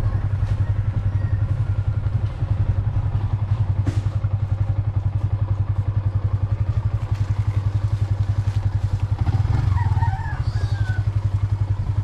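Motorcycle engine running steadily while riding along, with an even, fast low throb of firing pulses.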